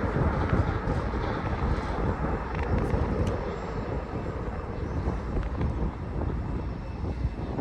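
Airliner passing on a landing approach: a steady rumble of jet engine noise with no clear tone, with wind buffeting the microphone.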